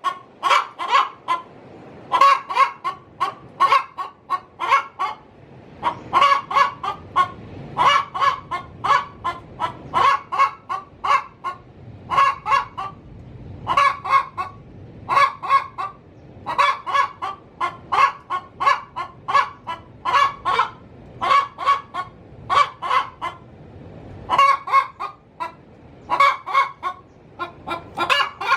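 Domestic hen cackling: bursts of short, sharp clucks, one phrase every second or two, the laying call a hen gives when she is about to lay an egg.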